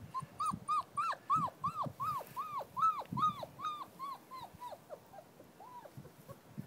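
Young German Shepherd puppy whimpering: a quick string of short, high, arching cries, about three a second, that grow fainter and sparser after about four seconds, with one last cry near the end.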